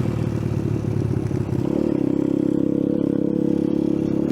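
Icebear Champion 125cc single-cylinder four-stroke mini bike engine running under way off-road, its pitch rising to a higher steady note about a second and a half in as the throttle is opened.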